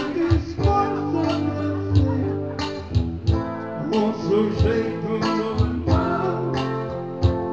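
Live music from a guitar duo: guitar with a steady drum beat keeping time.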